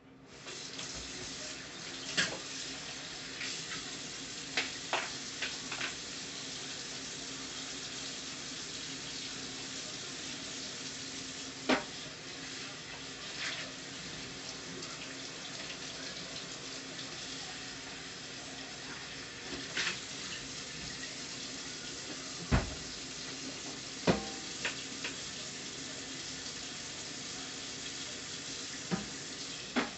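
Shrimp and taro-stolon curry with a little added water simmering under a lid in a frying pan: a steady sizzling hiss with a faint low hum beneath it and a few sharp clicks and pops.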